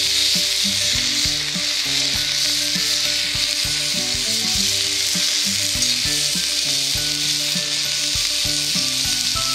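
Chicken thighs frying in oil in a Turk forged-iron frying pan over a wood fire, just turned over: a steady, loud hissing sizzle.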